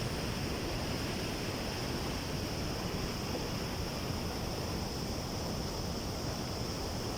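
Waterfall: steady, unbroken rushing of falling water.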